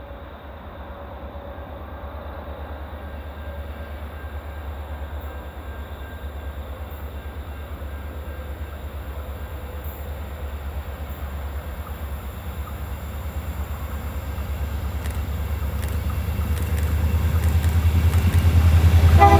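Diesel locomotives hauling a grain train approach, their engines' low, pulsing rumble growing steadily louder as they near.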